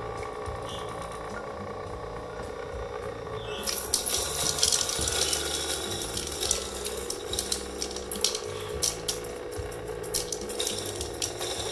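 KUIS K-500N electric burr coffee grinder running with a steady hum; nearly four seconds in, a loud crackling hiss with many sharp ticks sets in and keeps going as the burrs work.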